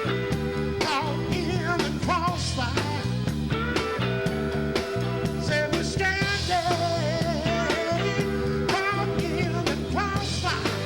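A band playing a rock and roll song with drums, bass, guitar and singing, the drums keeping a steady beat.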